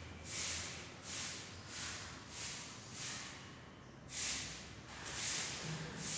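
Scratchy writing strokes, about one every half to two-thirds of a second with a short pause a little past the middle.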